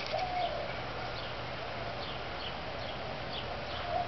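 Wild birds chirping now and then, with a short lower call near the start, over a faint steady hiss.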